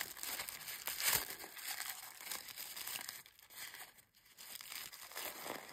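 Tissue paper crinkling as a small wrapped item is unwrapped by hand, loudest in the first second and a half, then fainter.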